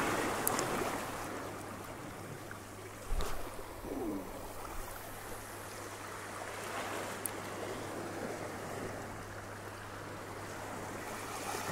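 Small waves from a calm sea washing steadily over the rocks at the water's edge. A brief low thump about three seconds in.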